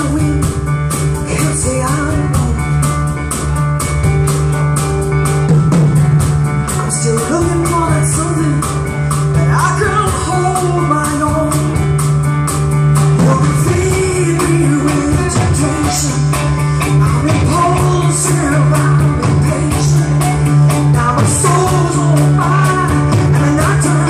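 Live rock band playing: a woman's lead vocal over electric guitars, bass, keyboards and drums with a steady cymbal beat.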